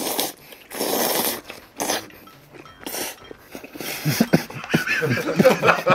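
A man slurping noodles and rice cakes from extra-spicy tteokbokki in a few short, sharp pulls. From about four seconds in he splutters, coughs and grunts in his throat at the heat.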